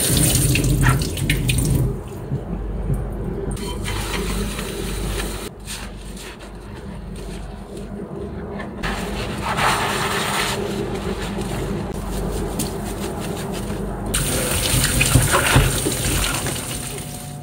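Kitchen tap running into a stainless steel sink as dishes are rinsed and a soapy sponge is worked. The water is loudest at the start, again about ten seconds in, and through the last few seconds.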